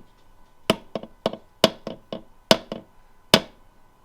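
Hammer striking a steel punch about nine times in quick, uneven taps, driving a stuck part out of a BMW ZF transmission; the part does not yet come free.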